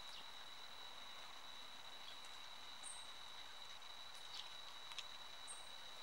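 Faint outdoor ambience: a steady high-pitched whine, with two brief very high chirps and a few soft ticks.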